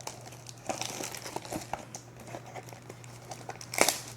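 Plastic wrapping on a trading-card box crinkling and crackling as it is pulled open by hand, in irregular bursts. There is one sharp, louder crackle near the end.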